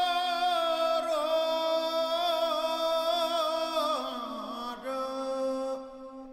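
Background music: a single chanted vocal line held and wavering over a steady low drone, sliding down about four seconds in and fading out near the end.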